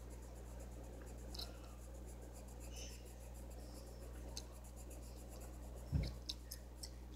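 Colored pencil scratching lightly on paper as a coloring-book page is shaded in, over a steady low hum. A short thump about six seconds in, followed by a few light clicks.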